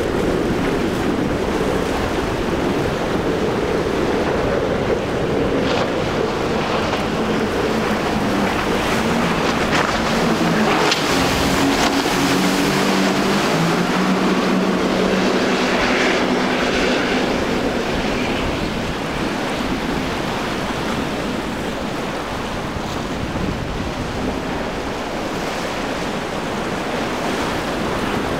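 Motorboat engines running at speed through surf, their drone shifting in pitch over steady wave noise and wind on the microphone. The engine sound fades out about two thirds of the way through, leaving waves and wind.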